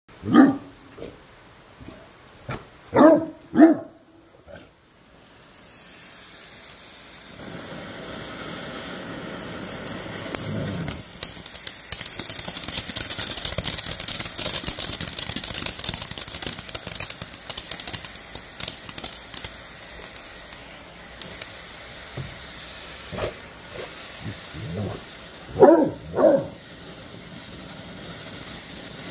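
A dog barks several times, then a firework fountain hisses and crackles as it sprays sparks, building to its loudest in the middle and easing off. Two more barks come near the end.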